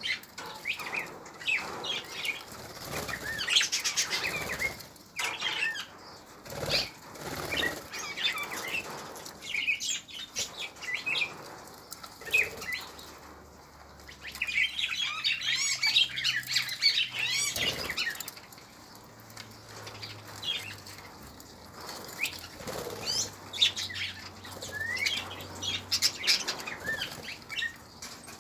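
A flock of budgerigars chattering with short chirps and warbles, most densely a little past halfway, with wings fluttering now and then as birds fly in and out.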